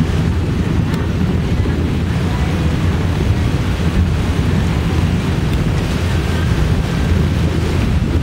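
Steady wind buffeting the microphone on a motorboat underway, over the low drone of its motor and the rush of water from its wake.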